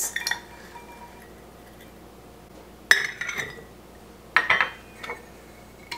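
Metal measuring cup clinking against glass mason jars and a ceramic mixing bowl as chopped carrots are scooped and tipped into the jars. There are three short bursts of clinking: at the start, about three seconds in and about four and a half seconds in.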